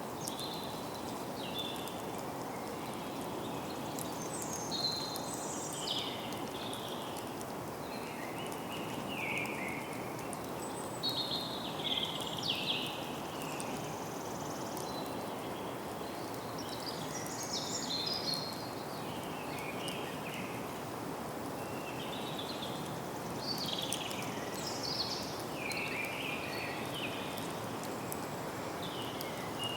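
Forest ambience: many birds singing and calling in short high phrases throughout, over a steady low background hiss.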